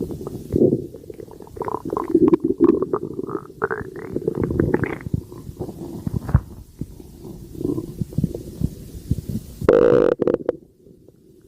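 Stomach growling: a continual run of irregular gurgles and short squeaky rumbles, with a louder gurgle about ten seconds in before it quiets.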